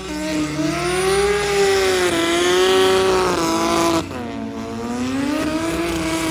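Car engine held at high revs, its pitch wavering up and down; about four seconds in the revs dip and climb back up.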